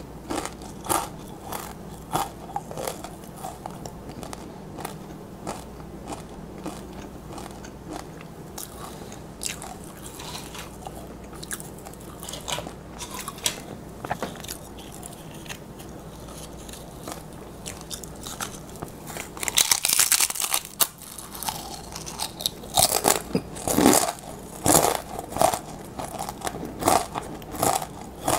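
A person biting and chewing crisp tortilla chips: sharp crunches that ease off into quieter chewing, then a loud bite about two-thirds of the way through, followed by heavy crunching.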